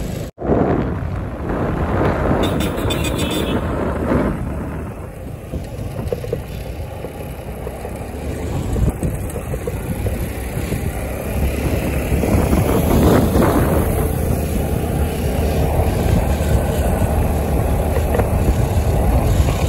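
Road vehicle noise while travelling through traffic: a steady, loud rumbling haze of engines and movement.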